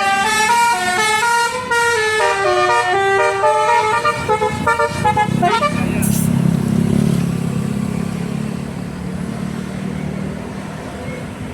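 Bus 'telolet' Basuri multi-tone musical horn playing a quick melody of stepped notes for about five seconds, ending in a short pitch slide. Then the bus's engine runs with a steady low rumble as it passes, slowly fading.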